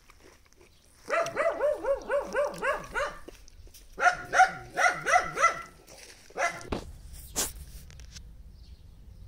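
A dog barking in quick runs of yaps, about four a second: two runs of several barks and a couple more later, followed by a single sharp click.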